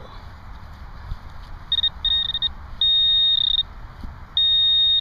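Handheld Garrett Pro-Pointer pinpointer probe sounding its high alert tone, first in quick pulses, then held steady twice: the probe is right on a small metal target in the dirt.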